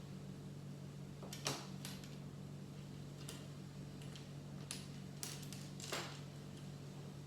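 Small plastic clicks of Lego pieces being handled and pressed together, about six sharp ticks spread out at irregular times, over a steady low hum.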